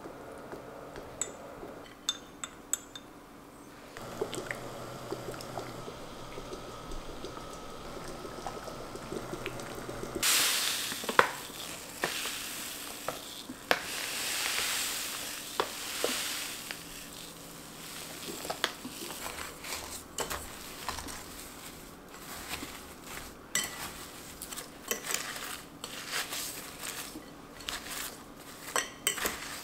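Kitchen utensils and dishes clinking and knocking during preparation of lemon-ginger syrup. A stretch of steady hissing starts about ten seconds in and fades over several seconds, followed by many quick clicks and knocks.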